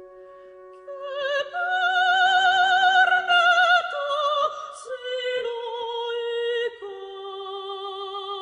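Soprano singing with wide vibrato over a soft orchestral accompaniment. A quiet held chord opens; the voice enters about a second in, is loudest on a high held note, then descends to lower sustained notes.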